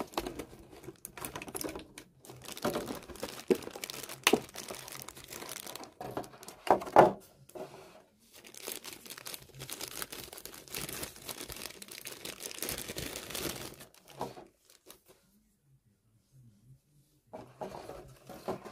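Clear plastic bag crinkling and rustling as a figure is worked out of it by hand, in uneven bursts that stop about fourteen seconds in. After a quiet pause, a short burst of crinkling comes near the end.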